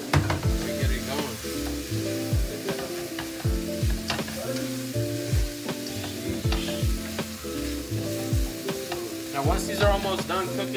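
Sliced beef sizzling in a frying pan as it is stirred and turned with metal tongs, under background music with held chords and deep bass kicks that drop in pitch.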